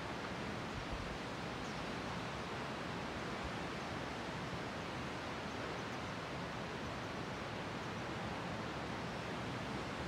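Sea surf: a steady, even rushing of waves, with no single wave breaking out above the rest.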